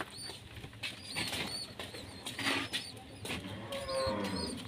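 Domestic pigeons cooing faintly, a few low calls in the second half.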